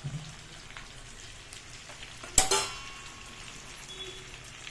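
Chicken frying in a kadhai with a steady sizzle. About two and a half seconds in, a single sharp metallic clank with a brief ring as the steel mixer jar knocks against the pan while the ground masala paste is tipped in.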